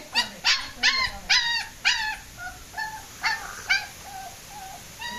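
German Shepherd puppy yipping and whimpering in a quick series of short, high-pitched calls, about two a second, loud for the first couple of seconds and then softer.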